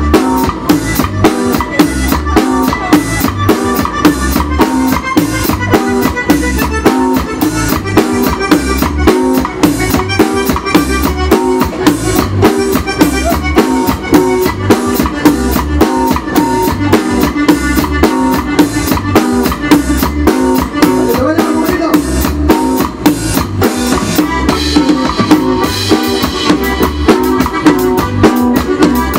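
Live band playing a cumbia: a drum kit keeps a steady, even beat under a button accordion and guitar.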